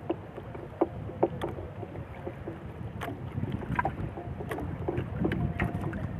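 Wind on the microphone and water against a small outrigger fishing boat at sea, with scattered light clicks and knocks at irregular intervals.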